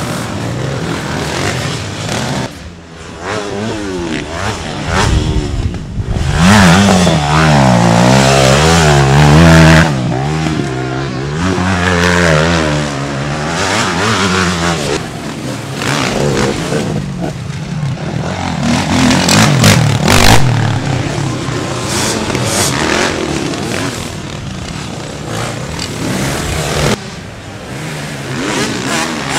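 Motocross dirt bike engines revving hard as bikes ride the dirt track, their pitch rising and falling again and again with the throttle and gear changes. The loudest, fastest-wavering stretch comes about six to ten seconds in.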